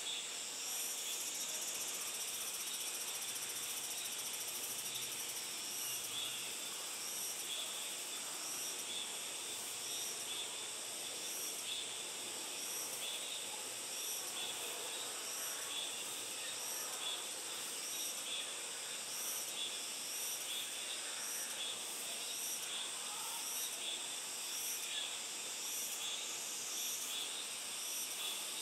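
Steady high-pitched chorus of insects, with a regular pulsing running through it.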